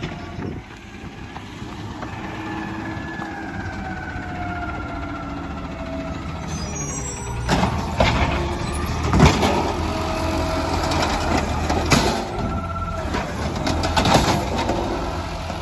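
Automated side-loading garbage truck pulling up: its diesel engine builds with a high squeal gliding down, then about halfway in a series of sharp metallic clanks and short hisses, with brief whines, as it works at the curbside bins.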